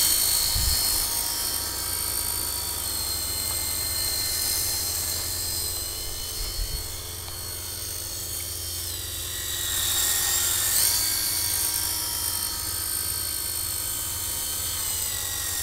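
Radio-controlled Tiger Moth biplane's motor and propeller whining steadily in flight, the pitch climbing and then dropping again about ten seconds in as the model flies by.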